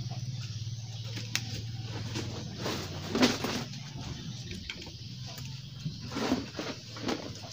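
Bamboo poles knocking and clattering against each other and the frame as they are handled and set on a pen's roof. There are a few knocks, the loudest about three seconds in and another about six seconds in. Under them is a steady low hum that fades out about halfway through.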